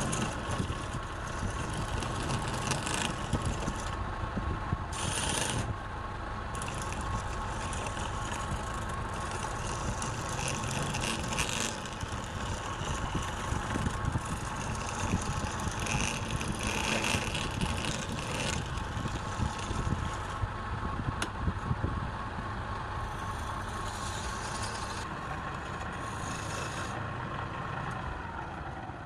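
Wood lathe running with a steady motor whine while a turning tool scrapes and cuts the spinning wood in uneven passes. Near the end the whine falls in pitch as the lathe slows down.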